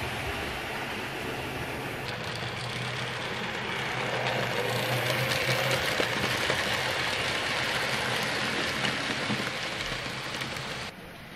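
HO-scale Jouef model freight train rolling past on its track: a steady rattle of the wagons' wheels on the rails over a low hum, louder in the middle as the wagons pass close by.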